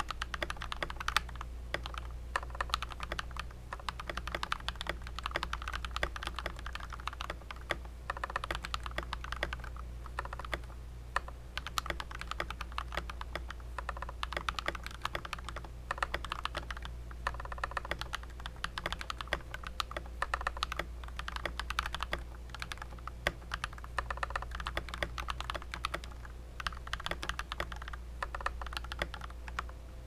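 Fast, continuous typing on a Rakk Illis mechanical keyboard fitted with lubed Akko CS Matcha linear switches and clipped, lubed stabilizers.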